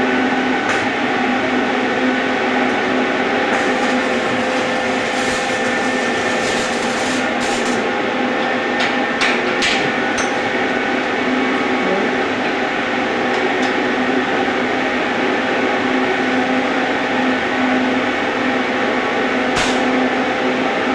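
Electric arc welding: a steady crackling hiss from the arc over a constant machine hum, with a few sharp clicks.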